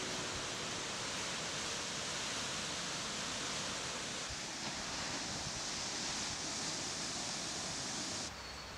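Ocean surf breaking below the cliff, heard as a steady, even hiss with no separate wave crashes. It drops away suddenly near the end.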